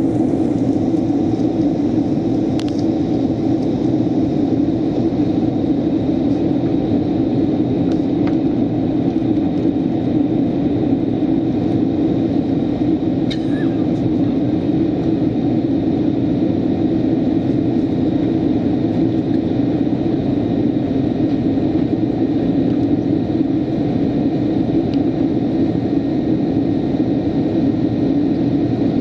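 Steady cabin noise of an airliner on its approach: the underwing turbofan engines and rushing airflow heard inside the passenger cabin, an even low rumble, with a few faint clicks early on and around the middle.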